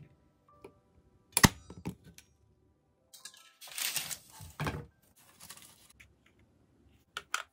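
A manual staple gun fires with one sharp snap about a second and a half in, followed by a smaller click. Then a large sheet of thin translucent paper rustles as it is spread out on a cutting mat, and two small clicks come near the end.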